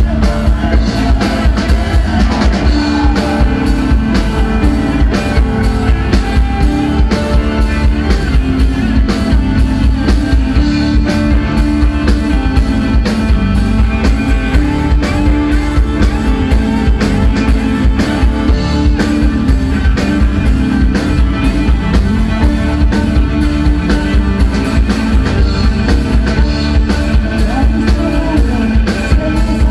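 Live folk band playing: strummed acoustic guitar, electric guitar and violin over a steady beat, with a woman singing at times.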